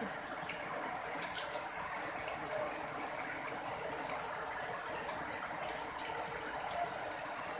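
Water gushing steadily from a drain hole in a concrete block wall and splashing into standing floodwater, with a constant patter of fine drops.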